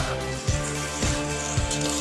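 Background march music with a steady beat, about two beats a second.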